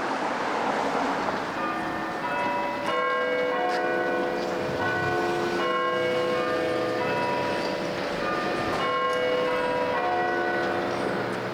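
Church bells ringing a peal: several bells at different pitches struck one after another, their tones overlapping as they ring on, over faint traffic noise.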